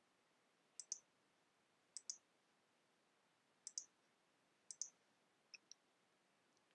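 Computer mouse button clicks, heard as four crisp press-and-release double clicks about a second apart, then two fainter ticks, as the cursor selects a font size and formatting in a web editor. The room is otherwise near silent.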